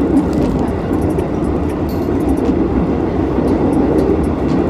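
Steady rumble of a moving passenger train heard from inside the carriage, with a few faint clicks over it.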